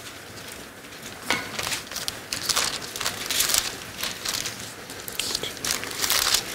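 Thin Bible pages being leafed through: a run of irregular papery rustles and flaps, with a sharp tick about a second in.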